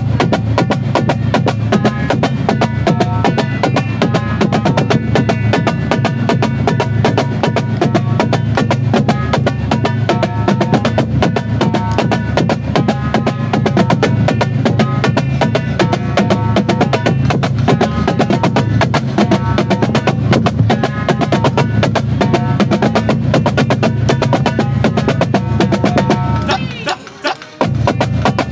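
Marching drumline of snare, tenor and bass drums playing a warm-up exercise together, a dense, unbroken stream of fast stick strokes over a steady low drum rumble. The playing breaks off for about a second near the end, then starts again.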